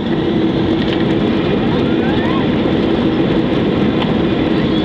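Jet airliner's engines heard from inside the cabin: a loud, steady rush of noise with a steady hum as the plane moves onto the runway.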